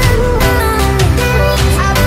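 Background music: an upbeat track with a steady beat and plucked guitar-like notes.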